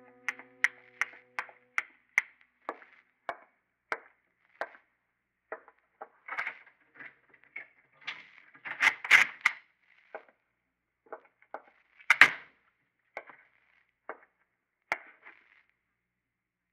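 Radio-drama sound effects of footsteps on a wooden floor, a step about every half second at first and then slowing. Then come rattling clusters and one loud bang about twelve seconds in as a door is opened and shut, followed by a few more steps.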